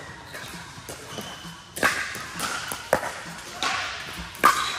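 Pickleball paddles striking a hard plastic pickleball during a rally: three sharp pops a second or so apart, the last the loudest, in a large indoor hall.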